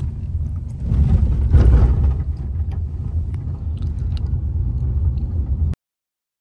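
Low, steady rumble of a taxi heard from inside its cabin, swelling louder about a second in, with a few light clicks. It cuts off abruptly near the end.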